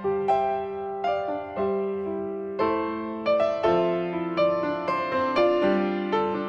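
Background piano music: a gentle tune of struck notes and chords, each left to ring and fade before the next.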